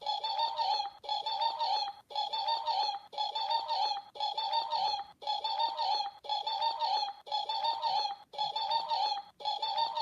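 Looped 'annoying bird laughing' sound effect: a fluttering, laugh-like bird call repeated about once a second, each burst nearly a second long with a short break between.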